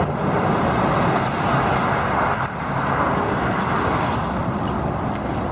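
Many broiler chickens packed in a poultry transport truck's crates, a steady dense din of many birds with short high squawks recurring throughout.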